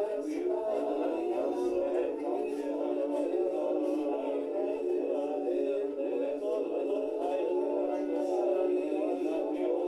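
Many overlapping loops of a man's recorded reading voice layered into one continuous chant-like murmur, with no single words standing out.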